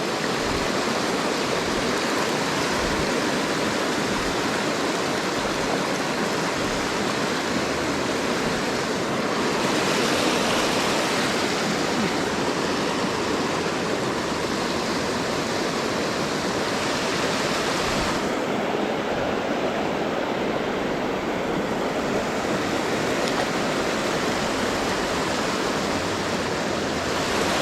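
Rushing creek water, a steady even rush.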